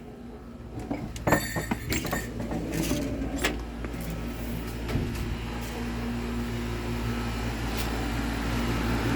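Goodman GSC13 air conditioner condensing unit running on its first startup of the season: a steady compressor hum with the rush of its outdoor fan blowing out warm air, growing louder. A few knocks and clatters come about a second in.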